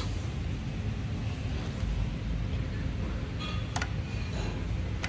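Steady low background rumble, with a sharp click at the start and a short metallic clink a little under four seconds in as the pole is seated in the metal hinge bracket of an overhead 360 photo booth arm during assembly.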